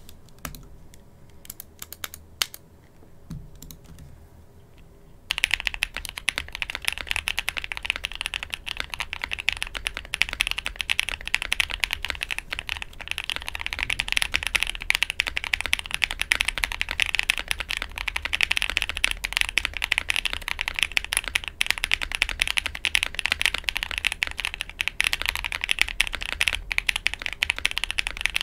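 Fast, continuous typing on a PE-foam-modded, O-ring-mounted aluminum KBDfans mechanical keyboard. It has an aluminum plate, GMK keycaps and lubed linear Frankenswitches (Kailh Pro Burgundy stems in Gazzew Bobagum housings). A few scattered clicks come first, and the steady typing starts about five seconds in.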